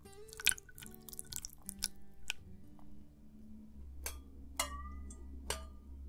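Small wet clicks and drips of dashi broth settling over freshly fried agedashi tofu, then three separate drops plinking in the second half. Soft background music plays underneath.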